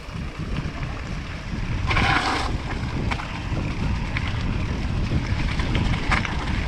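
Wind buffeting an outdoor camera microphone, a steady low rumble, with a brief hissy burst about two seconds in.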